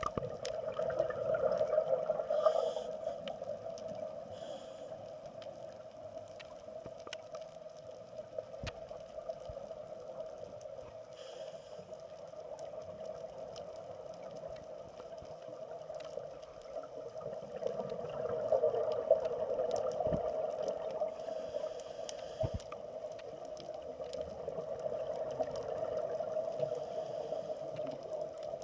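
Muffled underwater sound of scuba diving: a steady low drone of water noise that swells near the start and again about two-thirds of the way through, like the rush of divers' exhaled regulator bubbles, with scattered faint clicks.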